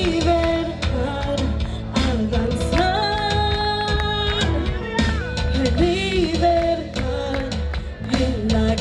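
Live worship band music: a drum kit keeps a steady beat under bass and long held melody notes that waver slightly in pitch, with no words sung.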